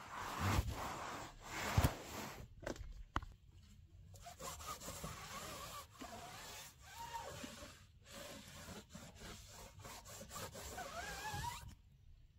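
A cloth rubbing and wiping over the wet bodywork of a Citroën 2CV by hand, with a few knocks of handling in the first couple of seconds. The rubbing cuts off suddenly near the end.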